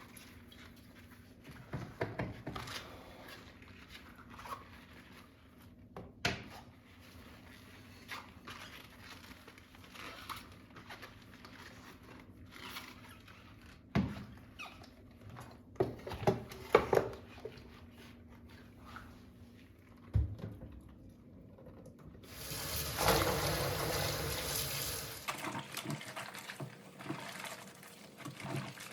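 Kitchen handling sounds: scattered knocks and clicks, then a kitchen tap runs for about three seconds near the end and trails off into a quieter flow.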